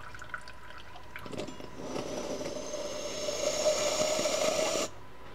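Fuel running out of a removed fuel filter into a plastic measuring beaker: a few small drips, then a steady pouring stream from about a second in that stops abruptly near the end.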